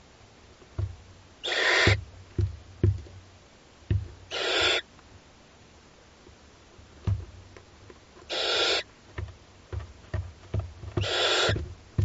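Barn owl chicks giving their rasping, snore-like begging hisses, four bursts of about half a second each spaced a few seconds apart, with soft low thuds from the chicks shuffling on the nest-box floor in between.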